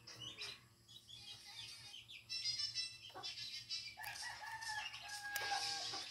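Birds calling outside: a few high chirps, then one long held call starting about four seconds in.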